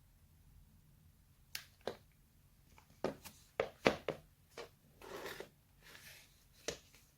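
Handling noises: a string of sharp clicks and knocks at irregular intervals, with a brief rustle about five seconds in.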